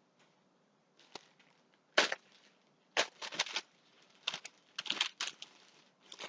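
Packaging being handled, giving irregular crinkles and crackles, busiest in the middle and second half.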